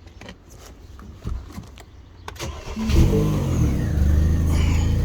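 Mini Cooper four-cylinder petrol engine starting: it catches about three seconds in with a brief flare of revs, then settles to a steady idle.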